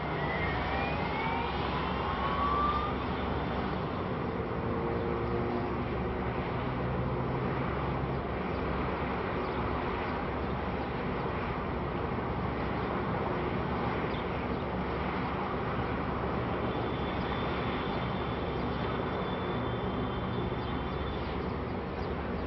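Steady traffic and engine noise, with a vehicle's rising whine in the first few seconds.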